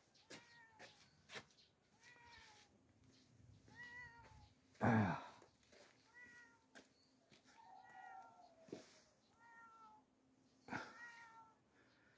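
A domestic cat meowing faintly over and over, a string of short meows about a second apart, one louder about five seconds in.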